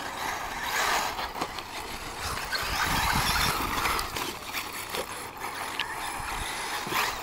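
Electric 1/8-scale RC buggies with brushless motors driving on a dirt track: motor noise and tyres on loose dirt, a steady hissing noise that swells about a second in and again around three seconds in as a buggy passes close.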